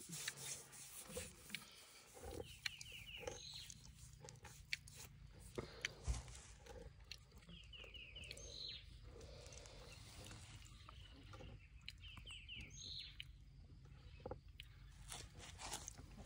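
Faint crunching and rustling of a young African elephant handling and chewing leafy branches. A bird repeats a short chirping phrase about every five seconds.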